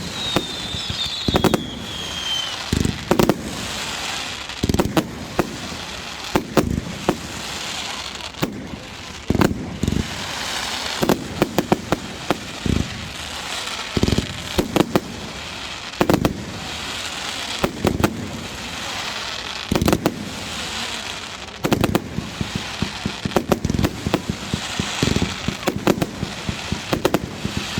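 Fireworks display: a long run of aerial shell bursts, irregular loud bangs one to several seconds apart with crackling between them. A whistling firework falls in pitch near the start.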